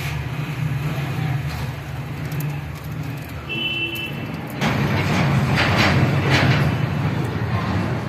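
Budgerigar wings fluttering and the bird scuffing right against the phone's microphone, a loud rustling noise with sharp scrapes from about halfway in. A steady low hum lies under it throughout, with a short steady high tone just before the rustling starts.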